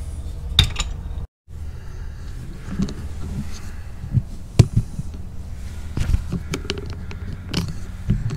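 Scattered light clicks and taps of tools and parts being handled over a steady low hum, with a brief cut to dead silence just over a second in.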